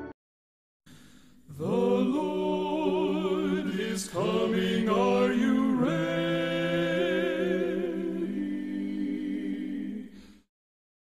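Unaccompanied singing voices holding long notes with vibrato. The singing starts about a second and a half in, breaks briefly near four seconds, and stops shortly before the end.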